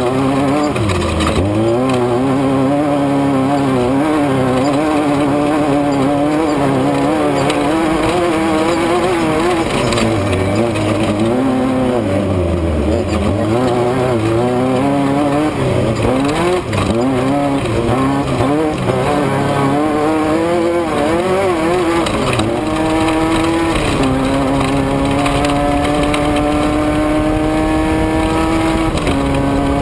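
Engine of an off-road race vehicle under hard driving: the revs rise and fall quickly with the throttle for most of the time. In the last several seconds it pulls in one long steady climb, broken by two upshifts.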